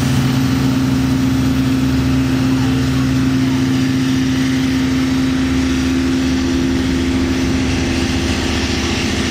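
Long Island Rail Road DE30AC diesel locomotive, with a 12-cylinder EMD 710 engine, running under load with a steady low drone as the train pulls away, fading slightly near the end.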